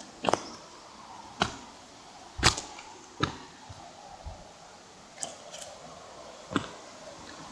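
Footsteps on a trail: irregular thumps and scuffs roughly once a second, the loudest about two and a half seconds in.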